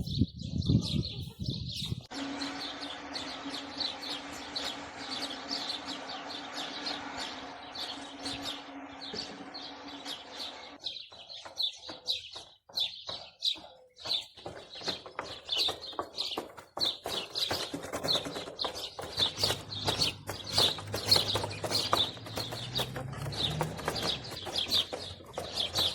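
Small birds chirping continuously in quick, repeated high notes. For the first ten seconds or so a steady hum with a hiss sits underneath, then stops; after that there is a scattered run of sharp ticks and knocks.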